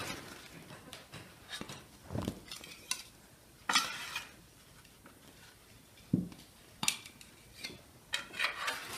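A metal spatula scraping and knocking on a metal baking tray as baked pastries are lifted off it, with a few clinks of plates. The sounds come in short separate scrapes and knocks, the longest about four seconds in.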